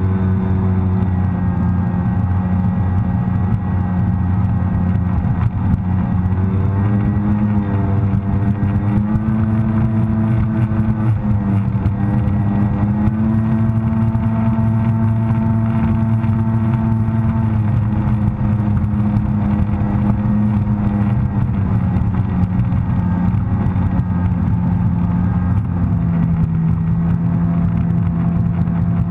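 Sea-Doo personal watercraft's engine running steadily at cruising speed, with a steady droning tone. The pitch rises a few seconds in, holds higher through the middle, and eases back down later on.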